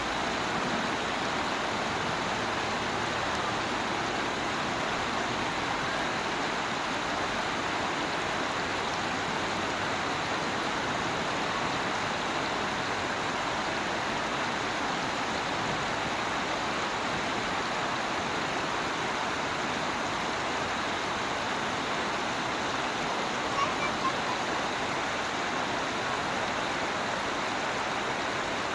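Steady rush of falling water from the Urlătoarea waterfall, an even continuous roar of spray and splashing. Two brief faint clicks come near the end.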